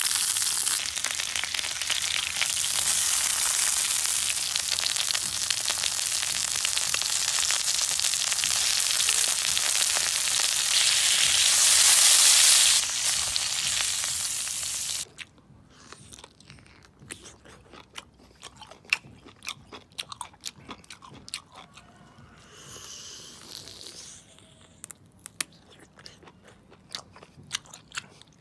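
An octopus tentacle sizzling steadily in oil on a hot black stone slab set over a wood fire. The sizzle cuts off suddenly about halfway through and gives way to scattered sharp clicks of biting and chewing close to the microphone.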